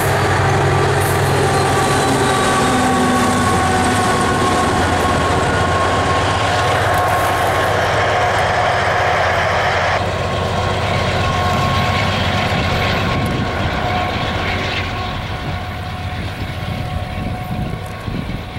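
Loaded coal train of freight cars rolling past on steel rails, a steady rumble of wheels with thin, steady squealing tones from the wheels. In the first seconds a GE AC4400CW diesel locomotive, running as the train's distributed power unit, goes by. The sound changes abruptly about ten seconds in and then grows fainter as the train moves away.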